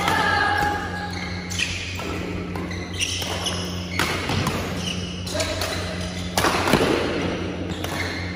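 Badminton rally: rackets striking a shuttlecock several times, with short squeaks of shoes on the court floor, over a steady low hum.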